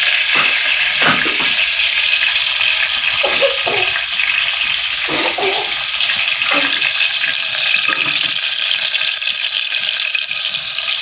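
Chopped onions and green chillies sizzling steadily in hot oil in an aluminium pan, with a few short clatters along the way.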